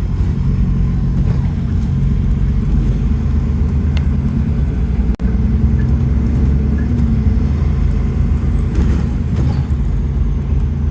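Alexander Dennis Enviro400 MMC Smart Hybrid bus's engine and air compressor running: a steady, low, droning rumble. It drops out for an instant about five seconds in.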